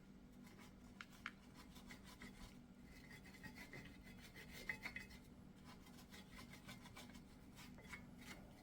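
Wire brush scrubbing brake dust off the brake assembly: faint, irregular scratchy strokes.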